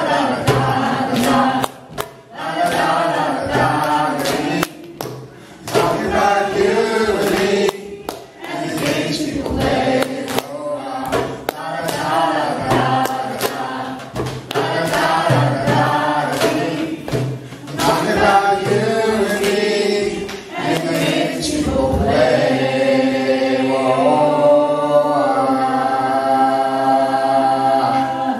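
Small mixed choir singing with a male lead voice over a djembe beat and hand claps. About three-quarters of the way through, the beat drops away and the choir holds a long closing chord.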